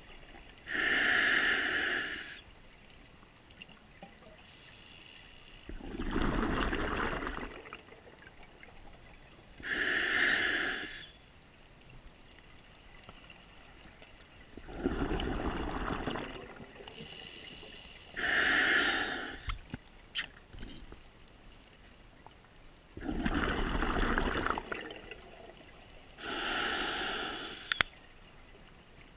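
Scuba diver breathing through a regulator underwater, heard as a slow cycle: a short hissing inhale through the demand valve, then a longer rumbling rush of exhaled bubbles, about every eight to nine seconds. There is one sharp click near the end.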